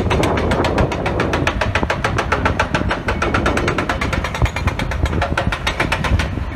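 Hydraulic breaker on an excavator's arm hammering hard rock in a rapid, even train of blows, over the low running of the excavator's engine. The rock is not cracking off under the hammering.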